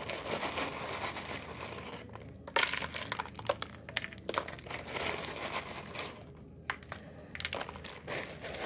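Clear plastic bag of crushed chips (hot fries, hot Cheetos, jalapeño kettle chips) crinkling in the hands as the crumbs are shaken and pinched out of it, in irregular crackling bursts with short pauses.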